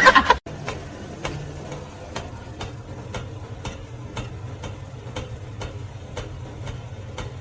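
Steady ticking, about two clicks a second, over a low steady hum.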